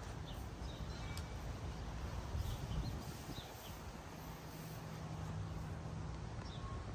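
Quiet background ambience: an even hiss with a steady low hum, and a few faint, short high chirps scattered through it.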